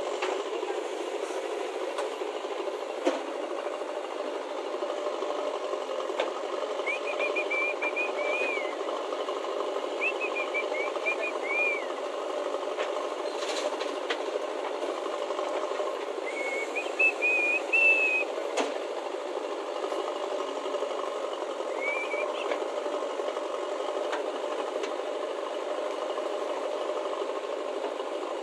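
JCB 3DX backhoe loader's diesel engine running steadily under load while it digs and dumps soil. Occasional sharp knocks come through, along with a few short, high warbling whistles in the middle of the stretch.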